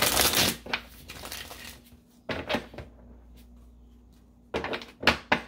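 A tarot deck being shuffled by hand. The longest, loudest burst of card flutter comes at the start, followed by a few shorter rustles of cards sliding and slapping together.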